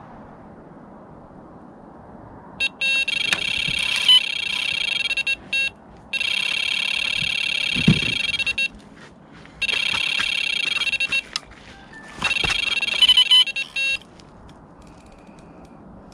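Electronic carp bite alarm sounding in four runs of rapid high bleeps, each two to three seconds long with short gaps between: line being pulled through the alarm on a take. A single low thump about eight seconds in.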